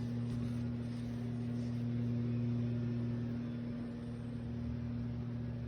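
Steady low electrical hum, two constant low tones with a faint hiss beneath them.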